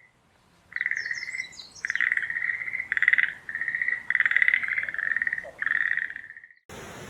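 A frog calling in a run of about seven pulsed trills at one steady pitch, each half a second to a second long. A few faint high bird chirps come about a second in.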